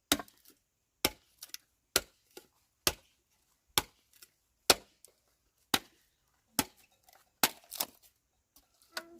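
Repeated chopping blows, about one strike a second, each sharp with fainter taps between them; two strikes come close together near the end.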